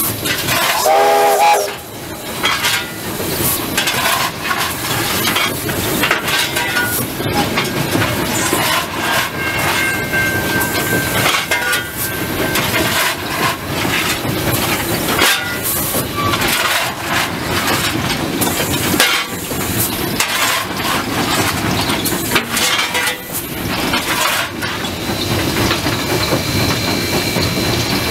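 Steam locomotive running, heard from inside its cab: constant clanking and rattling of the engine and wheels, with steam hiss. A short whistle-like tone sounds about a second in, and a thin steady high whine comes in near the end.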